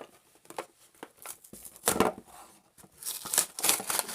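Toy packaging being torn open and crinkled by hand: scattered crackles, a louder tear about two seconds in, then denser crinkling near the end.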